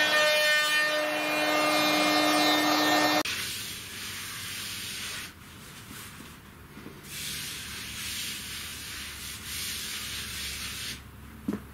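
CNC router spindle running with a steady whine while a surfacing pass skims the wooden bed flat; it cuts off abruptly about three seconds in. A quieter hissing rub follows: a hand sweeping over the freshly cut bed.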